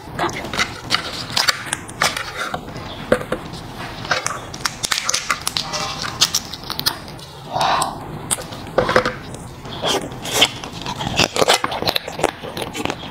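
Close-miked eating sounds of raw marinated crab: the shell crackling as it is pulled apart, then wet sucking and chewing of the meat and roe, with many quick clicks and smacks.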